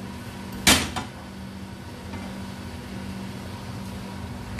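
A steady low kitchen hum, with one sharp metallic knock under a second in and a smaller click just after, as the frying pan is set down on the gas stove's grate.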